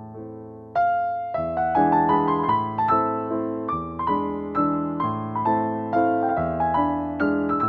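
Background piano music. After a brief lull, a new phrase of quickly played notes begins a little under a second in, each note fading after it is struck.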